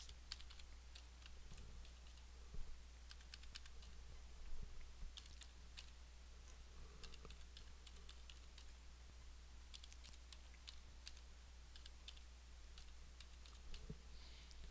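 Faint computer keyboard typing: irregular runs of keystrokes as a web address is typed, over a steady low hum.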